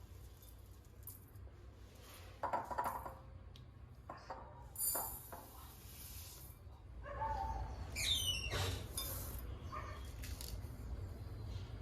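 Kitchen clatter as dishes and utensils are handled: scattered clinks and knocks, a brief hiss about five seconds in, and a short squeak around eight seconds.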